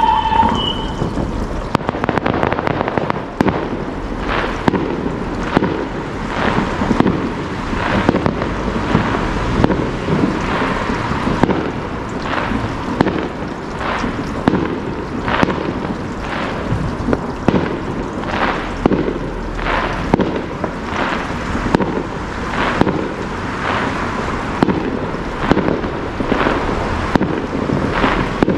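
Fireworks display: a continuous run of bangs and crackling, a burst every half second or so with no let-up.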